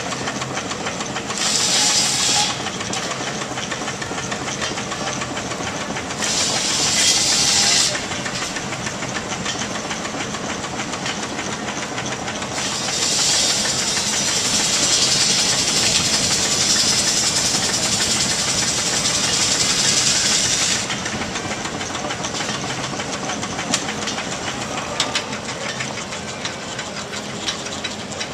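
Steam traction engine running with a steady mechanical clatter. Loud bursts of steam hissing come in three times: briefly about a second in, again around six seconds in, and for about eight seconds midway. A few sharp clicks sound near the end.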